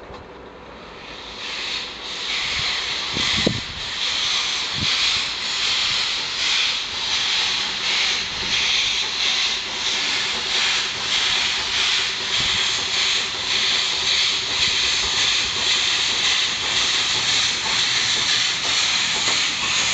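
LNER A4 Pacific 4464 Bittern, a three-cylinder steam locomotive, pulling away under steam: a loud hiss of steam that swells over the first couple of seconds, then holds with an even pulsing beat of about two a second. A low thump about three and a half seconds in.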